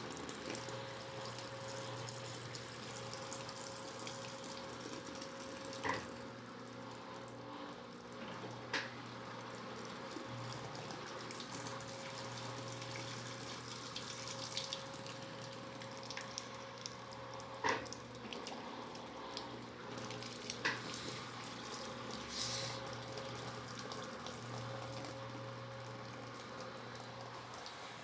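Electrolux LTC15 top-loading washing machine running with water splashing and running through it over a steady motor hum, and a few sharp clicks. The spin is being held back from full speed because the heavy, soap-laden basket goes out of balance.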